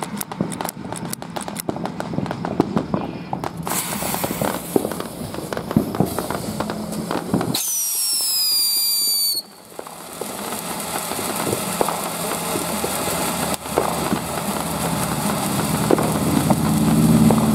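Consumer firework fountain going off: a few seconds of quick crackling as the fuse burns, then the fountain's steady hissing spray from about four seconds in. About halfway through, a high whistle falls in pitch for nearly two seconds and stops abruptly, then crackles and pops continue over the hiss. A low hum comes in near the end.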